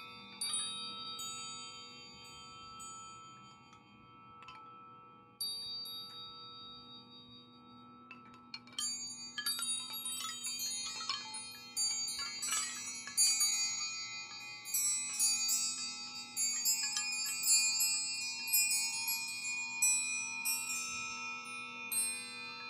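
Wind chimes ringing: a few scattered strikes at first, then many chimes jingling together, dense and continuous, from about nine seconds in. A faint steady low hum lies underneath.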